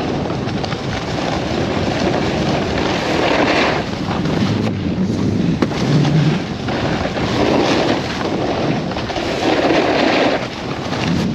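Wind buffeting a helmet-mounted action camera's microphone and a snowboard scraping over snow while riding downhill, a loud, rough rushing noise that swells and eases unevenly.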